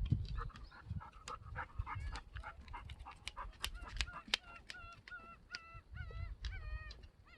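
Gulls calling: a run of short yelping calls, about three a second, each dipping and rising in pitch. Sharp clicks are scattered among them.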